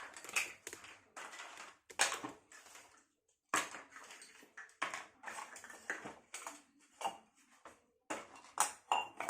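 Miniature toy cooking utensils (little pots, pressure cookers and plates) being handled and set down together, a run of irregular clinks and clatters with brief pauses.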